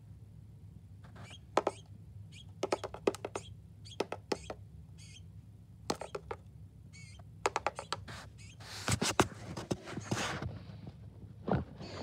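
A small songbird pecking in a window-mounted feeder with a one-way mirror: irregular sharp beak taps, single and in quick clusters. About nine seconds in comes a denser stretch of scratchy tapping and rustling.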